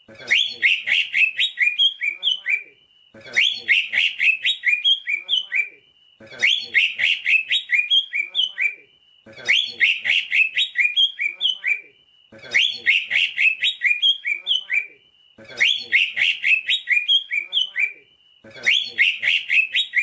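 Male green leafbird (cucak ijo) singing. Each phrase is a rapid run of chattering, whistled notes lasting about two and a half seconds, and the phrase comes again about every three seconds after a short pause.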